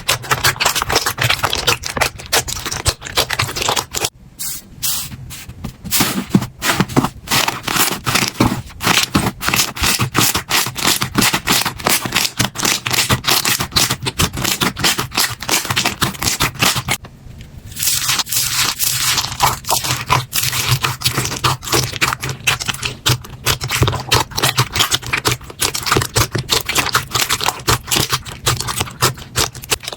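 Slime being pressed and squeezed by hand, a dense run of rapid small crackles and pops, broken by two short pauses, about four seconds in and again past halfway.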